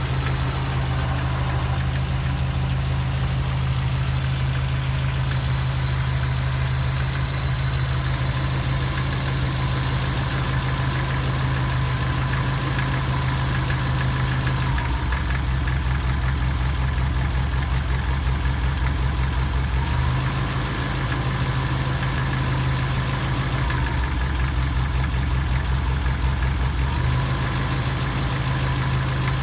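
Engine idling steadily with a knock, its low running note shifting a few times.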